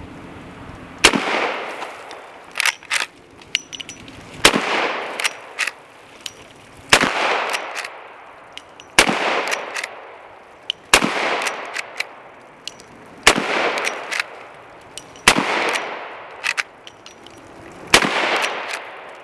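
.44 Magnum gunshots, about eight of them, spaced roughly two seconds apart, each with a long echoing tail, and shorter sharp knocks between the shots.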